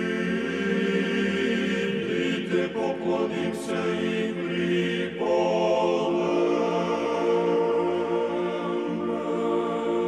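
Choir chanting in long held notes as background music; a higher voice part joins about five seconds in.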